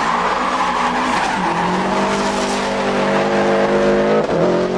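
Rally car at full throttle on a stage, its tyres hissing and scrabbling on the loose surface at first. The engine note then climbs steadily, breaks off briefly about four seconds in for an upshift, and picks up again lower.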